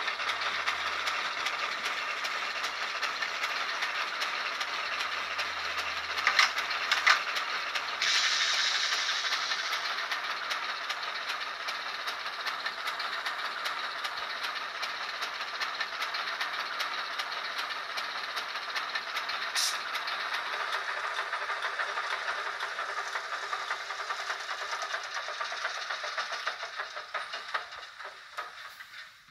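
ESU LokSound V5 Nano sound decoder playing a Baldwin VO-1000 diesel switcher sound through an 8x12 mm sugar cube speaker as the N scale model runs: steady engine sound with hiss. A couple of sharp clanks come about six to seven seconds in, and the sound grows louder with a hiss about eight seconds in. It fades out near the end.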